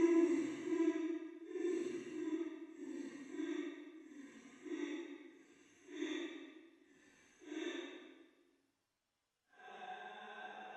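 Ghost sound effect: a breathy, pitched voice-like sound repeating in short pulses about once a second, growing fainter and stopping after about eight and a half seconds. After a brief silence, a steady eerie tone begins near the end.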